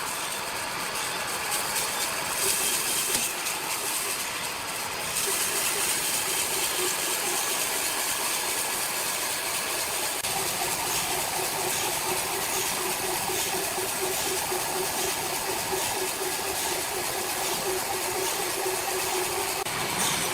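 Sawmill machinery running steadily, a continuous hissing whir with a faint hum that fades in and out.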